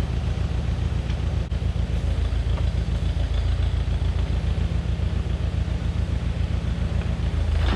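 Heavy equipment engine running steadily at a low, even speed.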